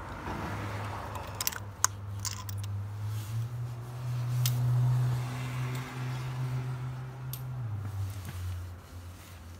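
A low, steady motor hum that rises in pitch about three seconds in and falls back near the end, with a few sharp clicks.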